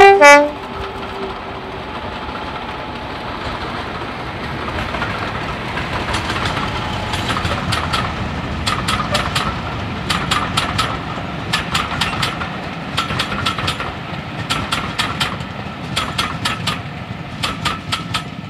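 A Class 50 diesel locomotive's horn cuts off at the very start. The locomotive's engine noise then builds, and from about seven seconds in the train's wheels click over the rail joints in quick groups as the train passes.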